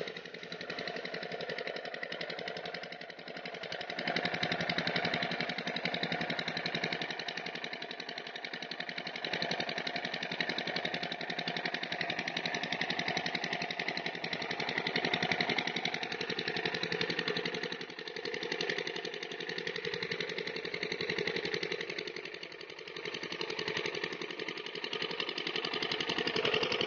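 Lister-type diesel engine running steadily as it drives an irrigation water pump, a rapid, even knocking beat.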